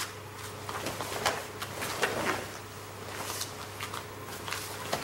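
Light rustles and soft scuffs of two karateka shifting in stance: karate gi fabric and bare feet on the floor, about half a dozen short sounds, over a steady low hum.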